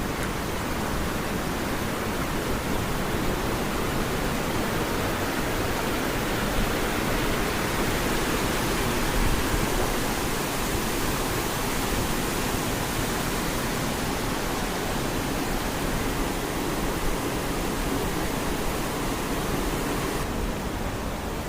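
The Allerheiligen waterfalls, a tall cascade in a rocky gorge, giving a steady, loud rush of falling water that drowns out everything else.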